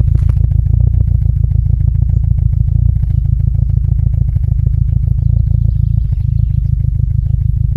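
Volkswagen T4 van engine idling roughly with an uneven, stumbling beat: a misfire at idle.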